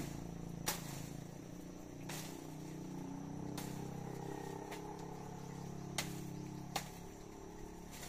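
Branches being cut back by hand: about six sharp snips or cracks at irregular intervals, over a steady low hum.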